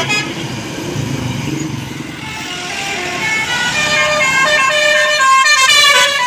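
A bus's basuri telolet horn, a multi-tone musical horn, playing a tune of held notes that step up and down, getting louder toward the end. A low rumble of engine and traffic fills the first two seconds.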